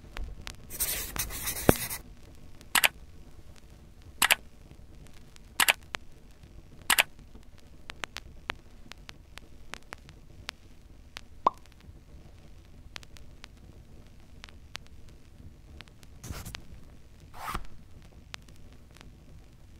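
A short scratchy rustle, then four sharp clicks about a second and a half apart, a few faint ticks, and two more brief scratchy rustles near the end, over a faint hiss.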